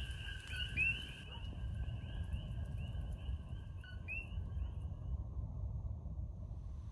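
Several coquí frogs calling, their two-note "co-qui" calls repeating and overlapping, fading out about four to five seconds in. Under them runs a steady low rumble.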